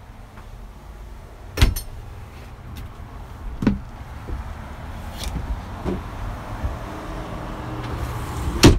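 Footsteps and knocks on a fiberglass boat deck and cabin steps: four dull thumps about two seconds apart, the last and loudest near the end. A low background rumble grows louder in the second half.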